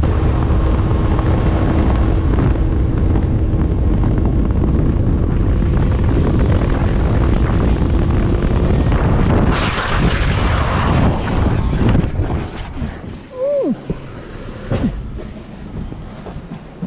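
Motorcycle running at road speed with heavy wind noise on the microphone. About ten seconds in a harsher rush of noise comes in. Then, around twelve seconds, the engine and wind sound falls away to quieter sounds with a single short knock.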